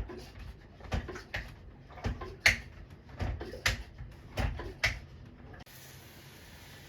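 An irregular series of sharp clicks and knocks of hard objects, about a dozen in five seconds, which stops abruptly after about five and a half seconds, leaving a faint steady hiss.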